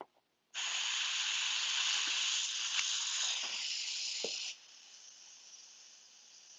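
Airbrush spraying paint onto a canvas: a loud, even hiss of air starts about half a second in, then drops to a much softer hiss about four seconds later.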